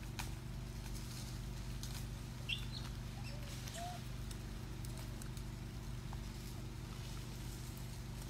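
Outdoor ambience: a steady low hum with scattered faint clicks, and a few short high chirps about two and a half seconds in.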